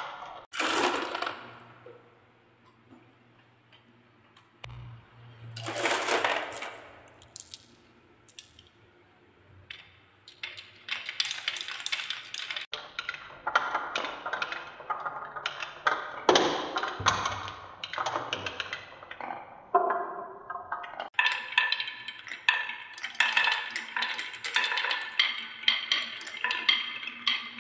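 Marbles rolling down wooden marble-run tracks, clicking and knocking against the wood. There are short rattling bursts with quiet gaps at first, then a near-continuous clatter of many small knocks in the second half.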